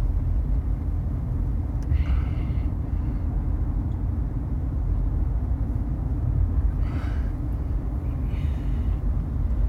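Steady low rumble of a car's engine and tyres heard from inside the cabin while driving, with a few faint brief hissy sounds in between.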